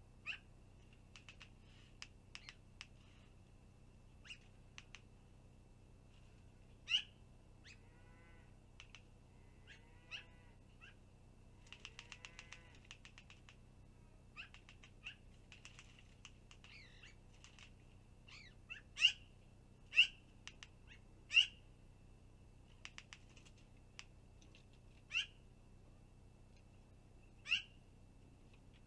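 Birds calling in a fight at a long-eared owl nest that magpies are attacking: sharp, harsh single calls that drop in pitch, scattered throughout. There is a rapid chatter about twelve seconds in and a run of loud calls near the end. A faint steady high tone runs underneath.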